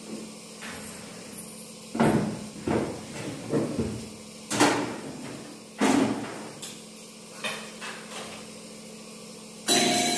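Irregular knocks and clatter of steel kitchen utensils and cookware being handled and set down, seven or so hard strikes a second or more apart, the loudest a bang near the end.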